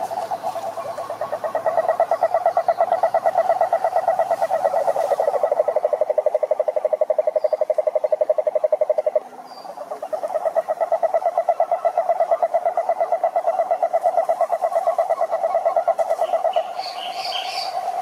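Male toads giving their long, low, fast-pulsing advertisement trills. One trill breaks off about nine seconds in, and another starts a moment later and runs until near the end, where a few brief high chirps come in.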